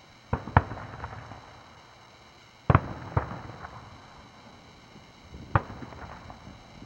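Aerial firework shells bursting: about five sharp bangs, a pair about half a second in, another pair near three seconds in and one more near the end, each trailing off in a rolling echo.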